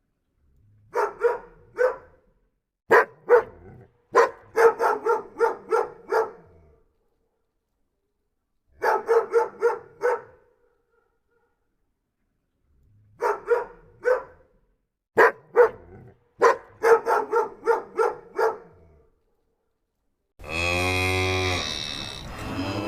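A small dog yapping in quick runs of short, high barks, several runs with pauses between them. Near the end a cow starts a long, low moo.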